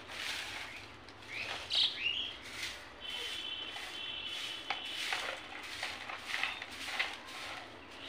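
Grass broom sweeping a concrete yard in repeated short swishing strokes, with birds chirping; a high steady trill runs for a second or two about three seconds in.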